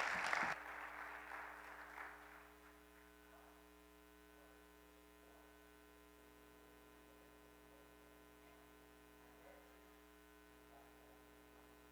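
Applause trailing off over the first two seconds or so. After it, a quiet room with a steady electrical mains hum made of many fine even tones.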